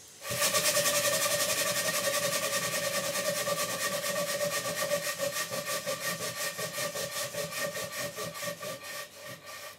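Scale Fowler traction engine model running on the bench: rapid, even exhaust beats up the blast pipe with a steady whine, the oil gurgling up the blast pipe the only other noise. The beats slow and fade as the engine runs down to a stop near the end.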